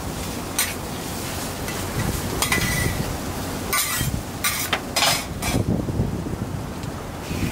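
Metal spatula scraping and clinking on a hot iron teppan griddle, clearing loose shredded cabbage, a series of short scrapes in the first five seconds, one with a brief squeal, over a steady low background with light sizzling.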